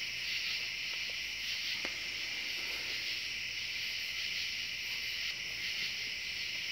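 Steady, high-pitched chorus of night insects, with no pauses.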